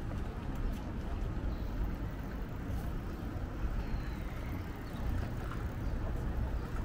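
Outdoor city ambience: a steady low rumble with faint voices in the background.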